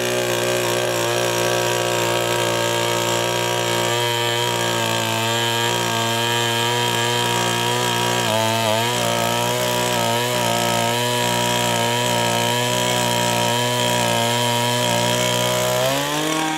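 Small 2 HP petrol engine of a one-man earth auger running steadily at high revs while the auger bit drills into the soil. Its pitch dips briefly about halfway through and rises near the end.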